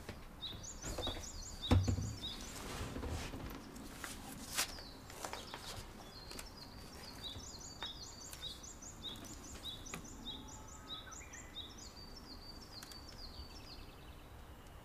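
Birds chirping in short phrases repeated over and over, with a few sharp knocks and a thump in the first few seconds, the loudest about two seconds in.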